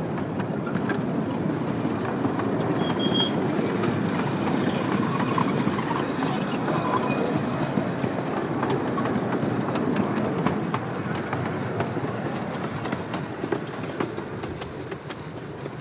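Ride-on miniature train rolling along its track, the wheels rumbling steadily with scattered clicks. It gets quieter over the last five seconds.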